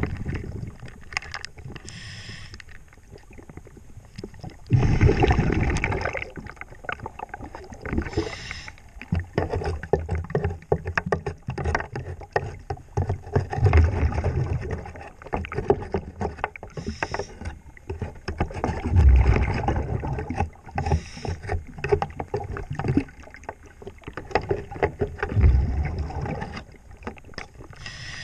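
Underwater sound of a scuba diver's regulator breathing: hissing inhales and rumbling bubble exhalations every several seconds, over continuous scratchy scrubbing of a brush against a boat's hull.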